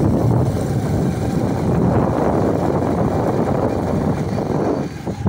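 Wind buffeting the microphone of a phone carried on a moving open vehicle, over the vehicle's running noise. It dips briefly near the end.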